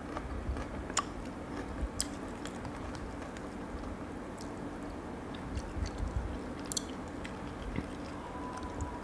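Chewing cooked lobster meat and cracking and peeling the lobster's shell by hand, giving scattered crisp clicks and crackles over a faint steady hum.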